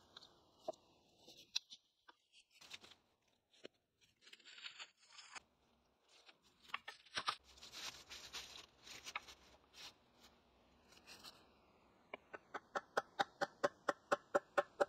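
Scattered clicks and rustling of branches and dry leaf litter as wooden poles are handled, then, near the end, a fast run of sharp wooden knocks, about five a second and growing louder, as a hand tool strikes a pole.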